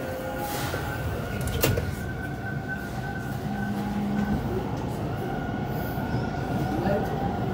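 Inside a Toronto subway car standing at the platform: steady car noise with a high whine running under it, and one sharp clack about a second and a half in. Near the end a faint rising whine begins, as the train starts to pull away.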